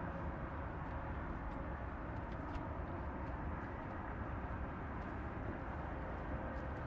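Steady low rumbling noise with a faint hum and a few light ticks, like the road noise inside a moving vehicle.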